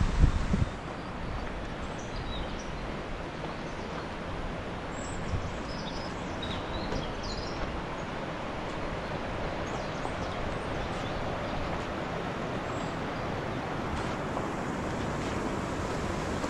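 Steady hiss of falling rain, with a gust of wind buffeting the microphone in the first second and a few faint high chirps a few seconds in.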